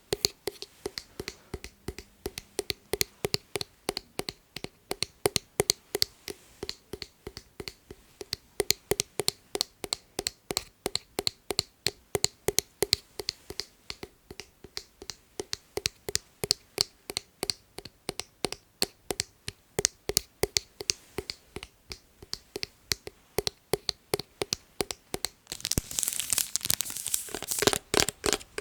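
ASMR finger tapping: quick, sharp taps in a steady rhythm of about four a second, running into a faster, denser and louder flurry of taps near the end.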